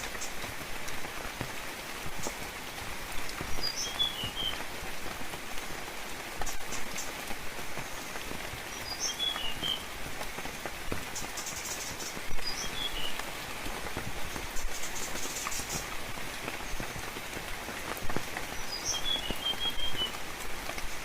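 Steady rainfall pattering on leaves, with scattered louder drips, while a small songbird gives short high chirping phrases about every four to five seconds.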